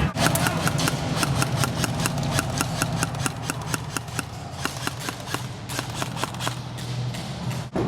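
Airsoft guns firing a rapid string of sharp shots, about four or five a second, thinning out near the end, over a steady low hum.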